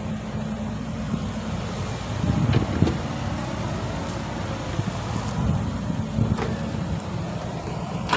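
Caterpillar 312B excavator's diesel engine running steadily with its hydraulics, working harder twice as it lifts and swings a bucket of soil over a dump truck, with a few knocks.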